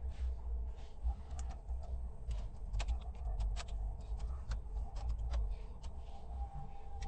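Irregular light clicks, a few every second, over a steady low rumble.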